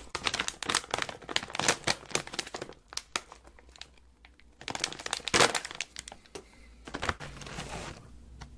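Plastic snack wrapper crinkling close to the microphone as it is handled and opened, in crackly bursts with a quieter pause of about a second and a half midway.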